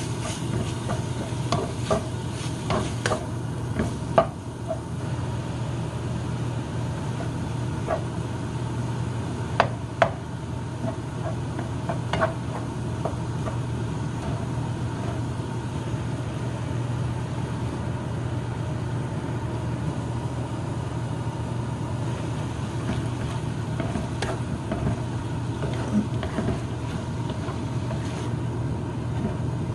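Minced pork sizzling in a stone-coated nonstick wok while a wooden spatula stirs it, with occasional sharp knocks of the spatula against the pan, a few clustered around four and ten seconds in. A steady low hum runs underneath.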